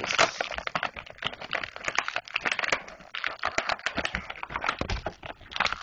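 Thin plastic packaging bag crinkling, with small plastic toy parts clicking as they are handled: many irregular crackles and clicks.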